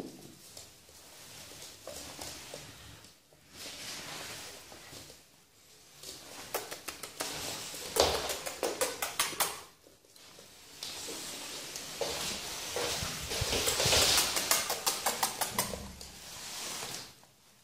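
Yorkshire terrier puppy scuffling and scrabbling while it plays at biting a hand, with rustling and rapid runs of clicks from its claws and paws on the wooden floor, about halfway through and again later on.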